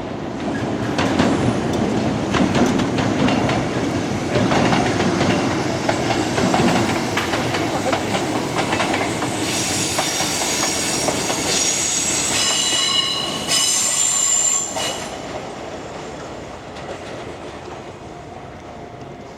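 Nankai Koya Line train passing over a level crossing, its wheels clicking over rail joints. From about halfway through, the wheels squeal high-pitched for several seconds, then the train noise fades away near the end.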